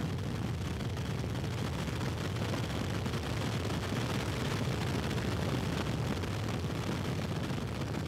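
Steady low rumble of aircraft noise, an even roar with no breaks.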